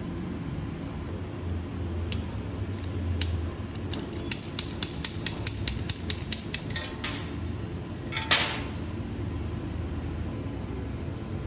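Stick welding electrode held in a ground clamp used as an electrode holder, tapped on a steel plate about four times a second to strike an arc, then a short burst of arc noise a little after the middle that leaves the rod stuck to the plate. A steady low hum runs underneath.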